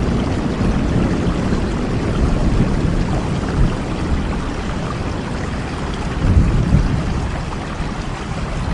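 Steady rain falling, an even hiss with a low rumble underneath that swells briefly about six and a half seconds in.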